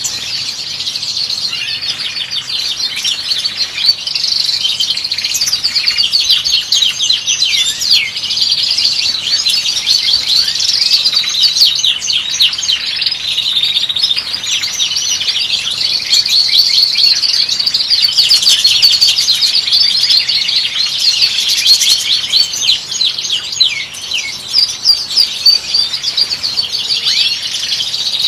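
European goldfinches singing: a continuous run of rapid, high twittering chirps and trills.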